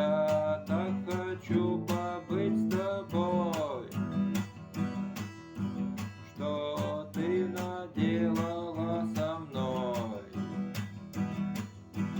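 Acoustic guitar strummed in a steady rhythm, with a melody line over it in two phrases.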